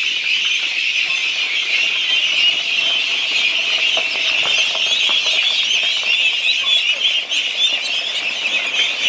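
A large flock of young ducklings peeping all at once, a dense, steady chorus of high overlapping calls, as they crowd together over freshly scattered feed.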